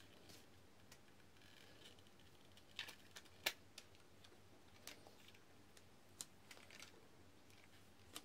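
Near silence broken by a handful of faint, sharp plastic clicks and taps as a toy motorcycle is handled, the loudest about three and a half seconds in.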